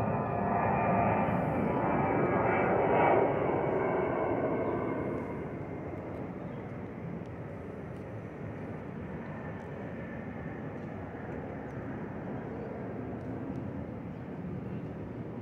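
Twin-engine jet airliner passing overhead: engine noise with a whine of several steady tones, loudest about three seconds in, then fading about five seconds in to a lower, steady rumble as it moves away.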